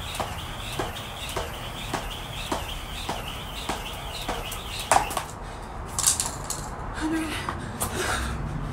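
Jump rope slapping a concrete floor in a steady rhythm, a little under twice a second. It stops about five seconds in on the loudest slap, and scattered knocks and shuffling follow.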